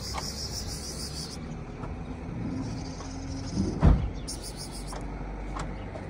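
Street ambience: a steady low rumble of road traffic, with high chirping near the start and again about four seconds in, and one dull thump just before the four-second mark.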